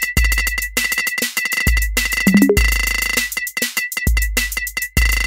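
Electronic drum-machine music playing a percussion polyrhythm: deep bass-drum hits with long low tails under quick metallic clicks that ring at one high pitch, with a short buzzing stretch about halfway through.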